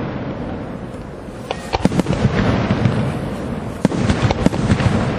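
Aerial firework shells bursting: a string of sharp bangs over a continuous din of echoing reports, with the loudest cracks from about a second and a half in.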